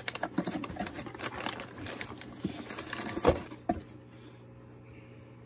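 Cardboard product box being opened by hand and a foam sponge filter slid out of it: irregular rustling, scraping and light knocks of cardboard, with a sharper knock about three seconds in, stopping a little before four seconds in.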